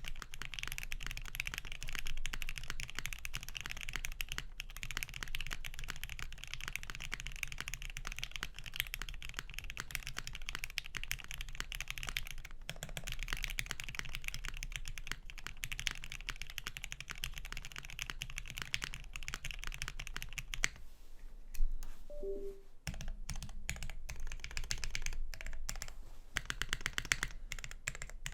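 Steady fast typing on a custom GS60 mechanical keyboard with a UHMWPE plate, Gateron Ink Black linear switches lubed with 205g0, and GMK doubleshot keycaps: a dense run of keystrokes. The typing pauses briefly about three-quarters of the way through, around one louder knock, then resumes.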